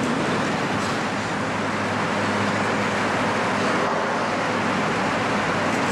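Steady rustling of a large congregation of worshippers moving on carpeted floor as the rows rise from prostration and settle into sitting.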